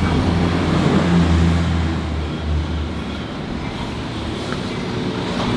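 Street traffic noise, with a low engine hum that is loudest in the first half and then eases off.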